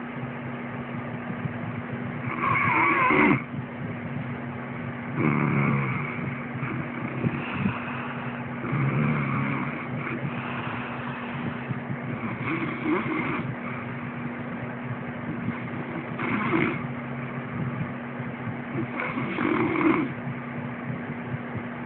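Loud snoring in sleep, with about six snores coming every three seconds or so over a steady low hum.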